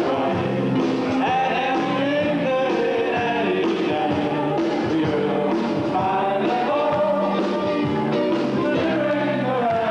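Live rock-and-roll band playing a dance number, with lead vocals over guitars, bass, drums and keyboards, recorded on a camcorder's microphone on the dance floor.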